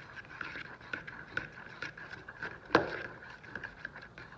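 A fork clicking and scraping against a bowl while stirring glitter into glue, with irregular light taps and one louder knock a little past halfway.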